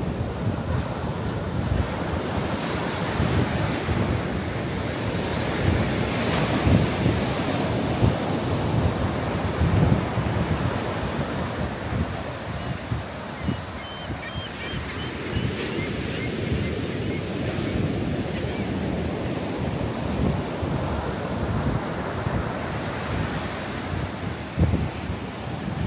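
Ocean surf breaking and washing up a sandy beach, a continuous rushing wash, with wind buffeting the microphone.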